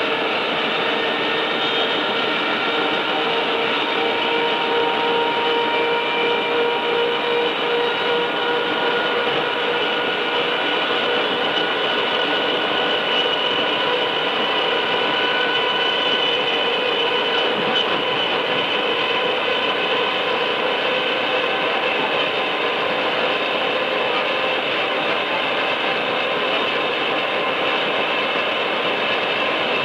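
Running sound of a Tobu 5050 series electric train, a resistance-control car with nose-suspended traction motors, heard on board. The motor gears give a steady whine in several pitches over the rumble of the wheels. The recording is distorted because it was made with a tape recorder's built-in microphone.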